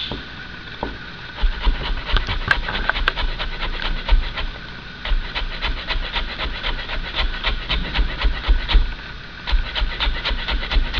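Chef's knife cutting a carrot into thin julienne strips on a wooden cutting board: the blade knocks on the board in rapid, even strokes, several a second. The chopping starts about a second and a half in and pauses briefly about nine seconds in.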